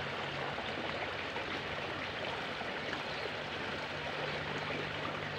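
Steady rushing noise like running water, with a faint steady low hum underneath.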